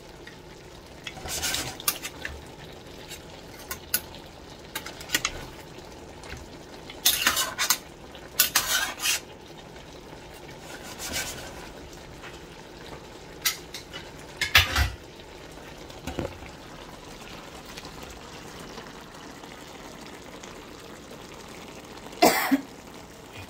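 A utensil stirring vegetables in a metal cooking pot: short, irregular bouts of scraping and clinking against the pot with pauses between, over a faint steady simmer.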